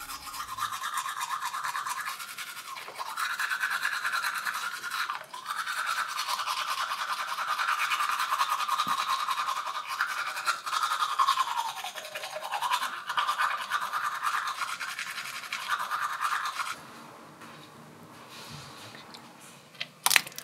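Teeth being scrubbed with a toothbrush: a dense, rapid bristle-scraping noise that stops suddenly after about seventeen seconds. A single sharp click follows near the end.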